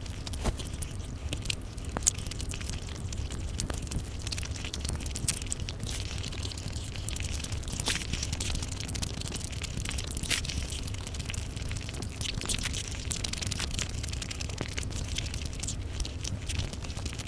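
Close-miked eating: wet chewing and mouth smacking, with many small clicks and sticky squelches as fingers pull apart curried chicken and rice. A steady low hum runs underneath.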